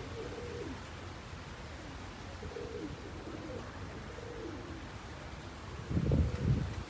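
Strong wind buffeting the microphone as a steady low rumble, with faint short whistling tones drifting in and out. A heavier gust hits the microphone about six seconds in.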